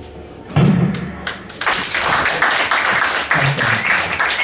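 A short low thump about half a second in, then a small audience applauding, the clapping starting about a second and a half in at the end of a live song.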